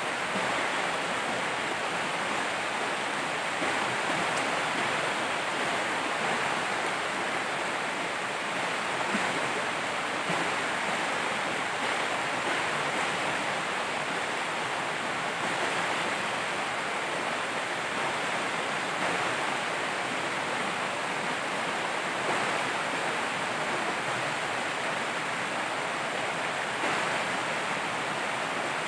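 Steady rush of a shallow, rocky river flowing over riffles and stones.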